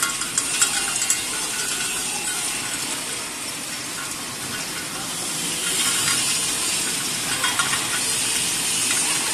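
High-speed chain-type candy forming machine running, its chain of forming dies making a steady mechanical rattle and hiss as formed hard candies drop down a metal chute. A few sharp clicks in the first second, and the hiss grows brighter about halfway through.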